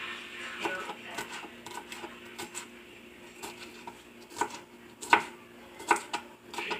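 Kitchen knife chopping green bell pepper into small cubes on a plastic cutting board: irregular light taps of the blade on the board, with several louder strokes about a second apart in the last few seconds.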